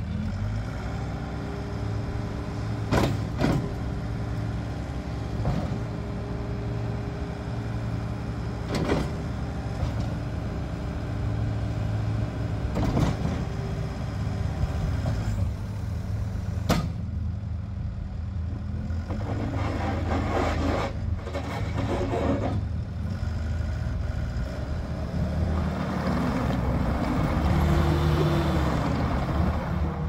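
Case TR270 compact track loader's 74 hp Tier 4 diesel engine running under load as the loader arms and bucket are worked, with several sharp metallic clanks. Near the end it drives forward on its rubber tracks, and the engine's pitch rises and falls.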